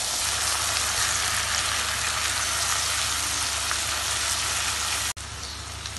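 Sliced onions and ginger-garlic paste sizzling in hot mustard oil in a wok as they are stirred with a spatula, a steady frying hiss. It drops suddenly to a quieter level about five seconds in.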